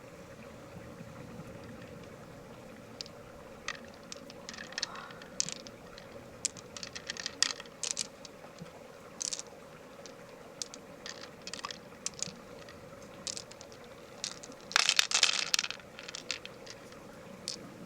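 Scattered sharp clicks and scrapes of a pearl mussel's shell being worked open and its pearls handled, with a louder crunching burst about fifteen seconds in. A faint steady hum runs underneath.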